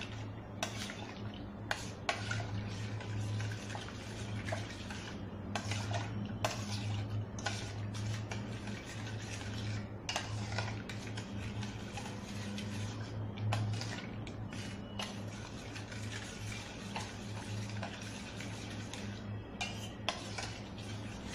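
Milk with chopped kiwi and dates being mixed by hand in a stainless steel pot: liquid swishing, with frequent clinks and knocks against the metal.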